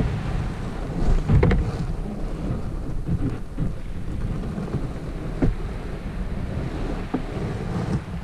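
Fishing kayak's hull dragged over a gravelly sand beach: a low, continuous grinding rumble carried into the kayak-mounted camera, with a few sharp knocks against the hull.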